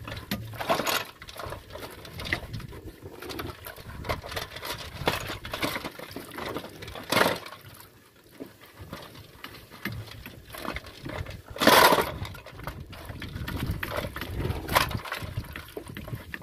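Metal planetary gears and carrier being scrubbed and turned by hand in a basin of oily liquid: irregular sloshing and splashing with metal clinks and knocks, and a few louder clanks, the strongest about twelve seconds in.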